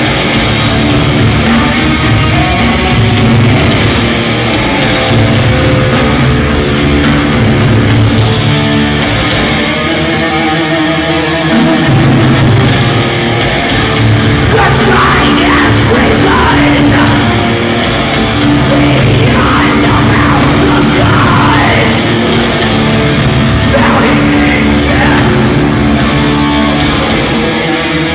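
Loud heavy metal music with distorted electric guitar.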